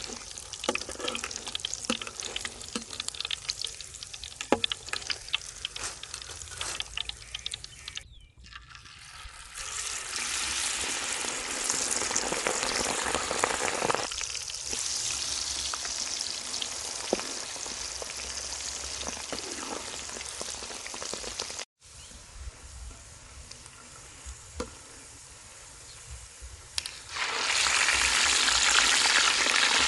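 Battered pig intestine pieces deep-frying in a wok of hot oil, a steady sizzling and bubbling. For the first several seconds a metal ladle and wire strainer clink and scrape against the wok as the pieces are stirred. Near the end the sizzle grows much louder as more battered pieces go into the oil.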